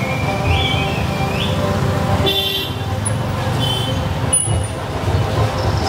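Heavy vehicle engine running with a dense crowd around it; a horn sounds briefly a little over two seconds in, and short whistles come from the crowd.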